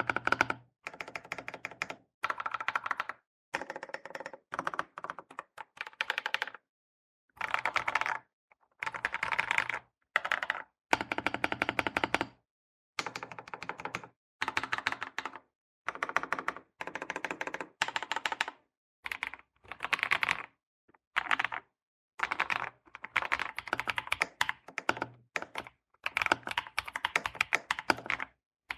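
Womier SK80 mechanical keyboard being typed on: fast runs of key clicks in short bursts, separated by brief gaps of dead silence.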